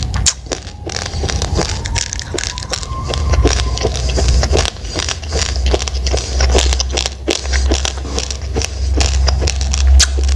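Raw, uncooked rice grains being chewed: a dense, irregular run of sharp crunches and crackles over a low rumble.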